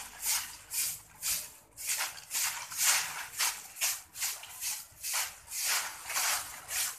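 Broom sweeping a concrete floor: a steady run of brisk scratchy swishes, about two strokes a second, pushing dry leaves and grit.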